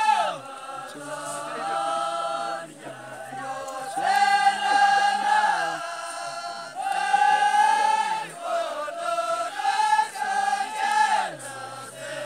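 A group of men chanting together in long held phrases of about two to three seconds each, with short breaks between them and the pitch sliding down at the end of some phrases.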